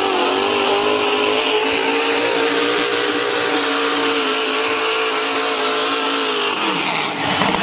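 Mud truck's engine held at high revs as it charges through a mud pit, a loud, steady high-pitched drone. The revs drop off about six and a half seconds in.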